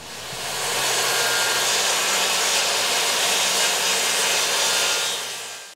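Jobsite table saw running and cutting half-inch plywood: a steady, loud sawing noise that builds up over the first second and cuts off just before the end.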